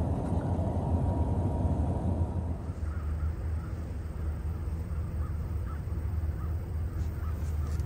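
Scanner radio hiss with a thin steady tone that dies away about two and a half seconds in, right after a defect detector transmission. After that, a bird calls in a run of short, evenly repeated calls, over a steady low rumble.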